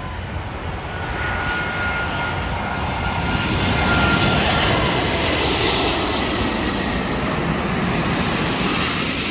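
Large wide-body jet airliner on final approach passing low overhead. Its engine noise builds to a peak about four seconds in and stays loud, with a steady high whine over it early on.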